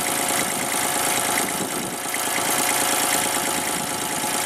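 Caterpillar 303 CR compact excavator's diesel engine running steadily, with its dipstick tube pulled for a blow-by check.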